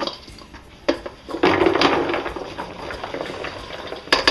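Stainless steel mixing bowls being handled on a kitchen counter: sharp knocks of metal on the countertop, and from about a second and a half in a louder rattling, scraping clatter inside a metal bowl that fades away, then another knock near the end.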